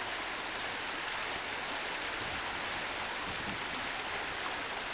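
Steady rush of stream water flowing over a rocky bed, an even noise that holds without break.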